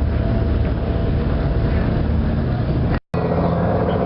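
Boat engine running steadily, a low drone with water and wind noise over it. The sound cuts out for a moment about three seconds in and resumes with a slightly changed tone.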